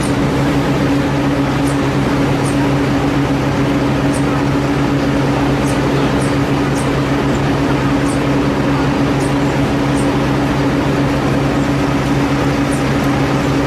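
A steady low mechanical drone that does not change, with a few faint short clicks scattered through it.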